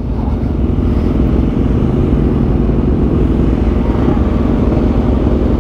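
Motorcycle engine running steadily at a slow, even pace under way, with dense road and wind noise and no sharp changes.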